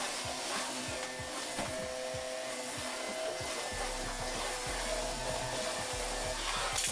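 Steady whooshing of an electric appliance motor, with soft background music.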